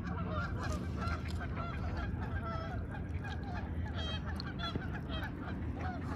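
A flock of geese honking, many short overlapping calls over a steady low rumble.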